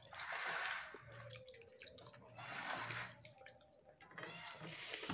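Wet eating sounds: fish head and rice being broken and squished by hand, then chewed, in about three short bursts.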